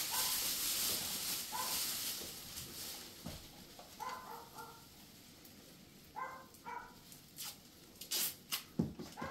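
Masking tape pulled off its roll in short squeaky pulls, then a few sharp rips near the end as strips are torn off, with plastic sheeting rustling at first.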